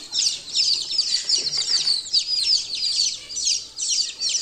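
Newly hatched chicken chicks peeping, a rapid overlapping run of high, falling peeps from several chicks at once.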